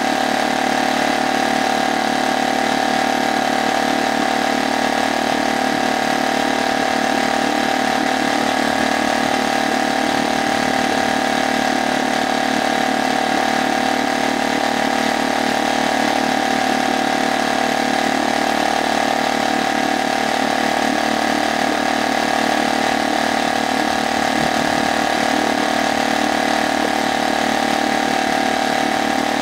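New HDX F 2.6 BMS four-stroke outboard motor running steadily with its leg in a test barrel of water, the note holding even throughout.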